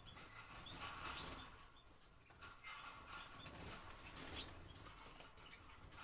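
Pet canaries fluttering their wings and moving about in wire cages, in irregular flurries.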